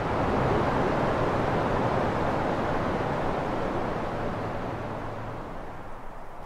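Steady rushing noise of an aircraft in flight, with a faint low hum beneath it, slowly fading over the last couple of seconds.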